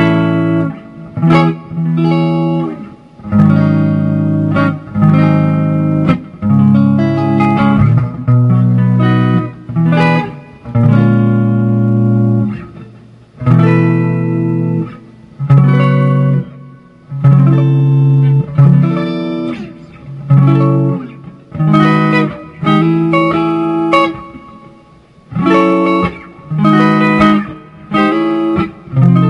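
Samick Greg Bennett AV-1 electric guitar played with a clean tone on a single pickup, volume about 5 and tone about 6: chords and short phrases struck and left to ring, with brief gaps between them.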